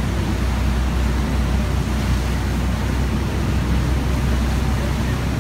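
A boat's engine running under way with a steady low drone, mixed with a constant rush of wind and water.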